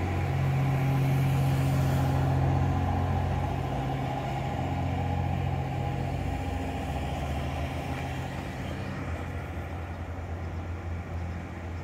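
A vehicle engine running with a steady low hum that slowly fades.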